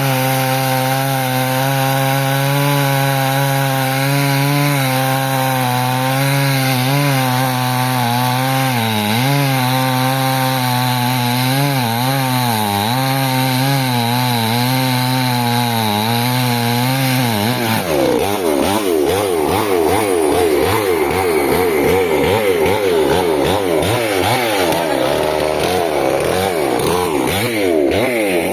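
Chainsaw cutting a large log, its engine running at a steady high pitch that sags briefly several times under load. About two-thirds through, the sound changes to a rougher, wavering tone.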